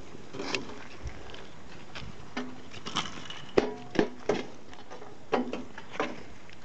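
Footsteps in flip-flops along a dry dirt path, with irregular sharp metallic clanks that ring briefly, a carried barbecue grill grate and poker knocking together. The clanks come thicker and louder from about halfway in.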